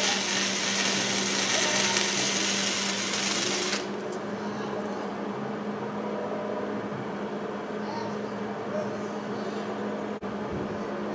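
Hobart Handler 140 wire-feed welder's arc crackling and sizzling while laying a repair weld on a broken tractor weld; the arc stops about four seconds in. A steady electrical hum carries on underneath throughout.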